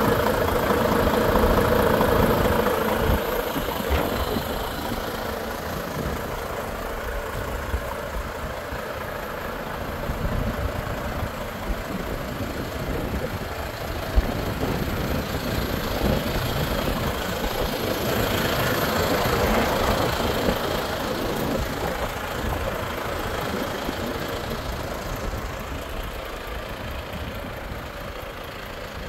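Volvo FH 460 truck's 13-litre inline-six diesel idling steadily, louder in the first few seconds. A single sharp click about fourteen seconds in.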